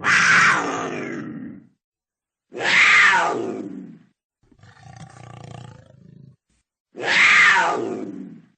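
Cougar calling: three loud calls of about a second and a half each, each sliding down in pitch, with a quieter, lower sound between the second and third.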